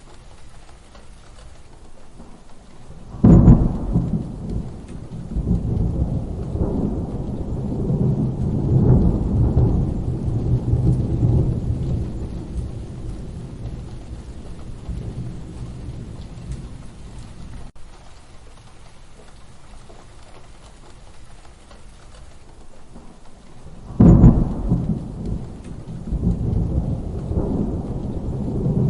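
Steady rain with two claps of thunder, about 3 seconds in and again near the end. Each begins with a sudden loud crack, then rolls on as a long low rumble; the first rumble lasts about ten seconds before fading back to the rain.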